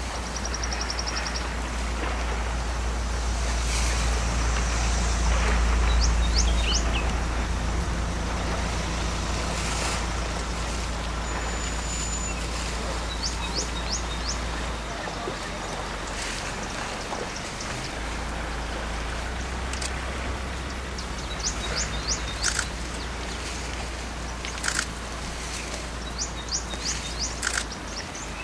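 Open-air riverside ambience: a steady low rumble under a broad hiss, with birds chirping in quick runs of three or four short high notes, several times.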